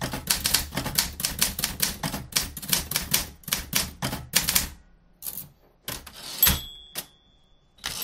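Typewriter keys struck in quick succession for about four and a half seconds, then a few separate clacks, and the typewriter's bell dings once about six and a half seconds in, ringing for about a second.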